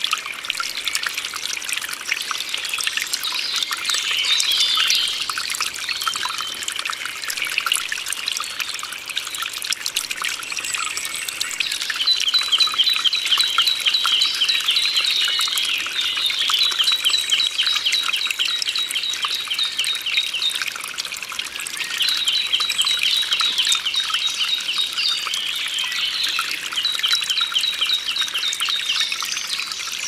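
Water trickling steadily, with a bird singing a rapid high trill in repeated phrases through the second half.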